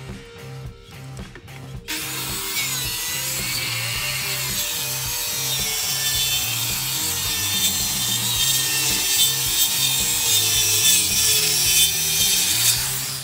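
A power saw cutting steadily through a wooden board, starting about two seconds in and stopping just before the end.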